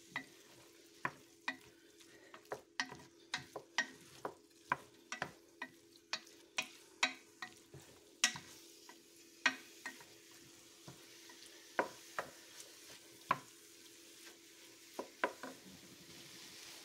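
A wooden spoon stirring diced raw chicken and chopped onion in a stainless steel pot, knocking against the pot in irregular clicks, about two a second at first and sparser in the second half, over a faint sizzle of the oil frying.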